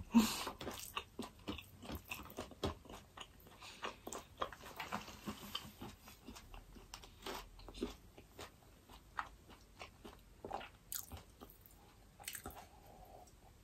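Close-up mouth sounds of chewing food: a long run of short, irregular wet clicks and smacks.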